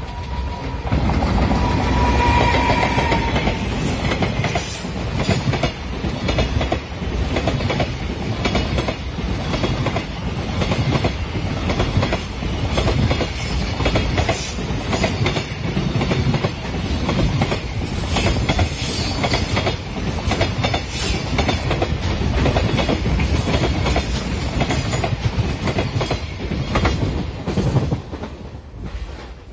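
JR Freight container train passing close by: steady rumble of the wagons with wheels clicking rapidly over the rail joints, dying away near the end as the last wagons go by. A short high tone sounds near the start.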